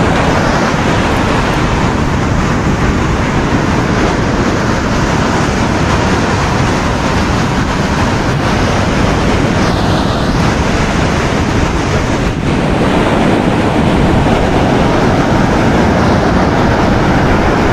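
Ocean surf washing on a beach, mixed with wind rushing across the microphone, as a loud, steady roar with no distinct events.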